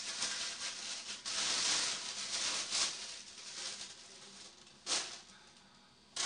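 Paper rustling and crinkling as a stool collection tissue is unfolded and handled over a toilet bowl, loudest in the first three seconds, then two short sharp crinkles near the end.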